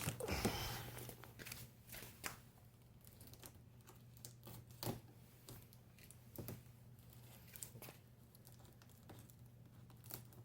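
Old cardboard fan box being opened by hand: a burst of tearing and rustling in the first second or so, then scattered light knocks and handling noises.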